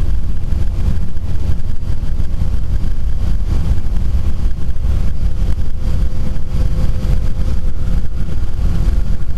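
Skydiving jump plane's engine and propeller heard from inside the cabin: a loud, steady low drone that does not change.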